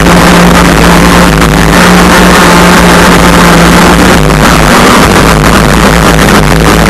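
Gas two-stroke engine of an RC crackerbox speedboat running at speed, heard from onboard, very loud and distorted, over a hiss of spray and wind. Its pitch sags a little a bit past halfway and climbs back near the end.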